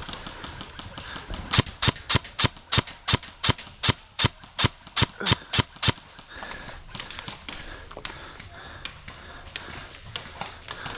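Airsoft gun firing a rapid string of about twenty semi-automatic shots, roughly five a second, as sharp clicks that stop about six seconds in.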